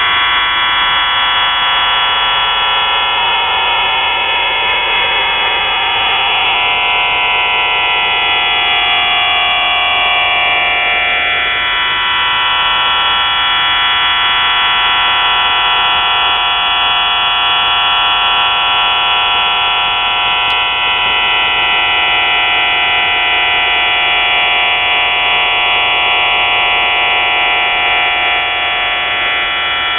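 Shortwave radio receiver tuned to 4632 kHz, putting out a dense mass of steady whistling tones with slower tones sliding downward through them. A rush of hiss joins in from about 3 to 6 seconds in.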